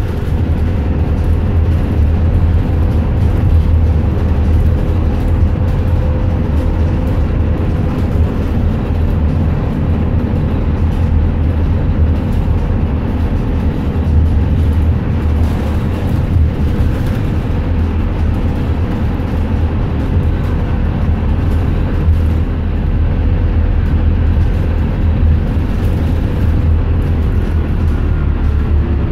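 Cabin noise of a moving transit bus: a steady low rumble of engine and tyres on the road, with a faint steady whine over it.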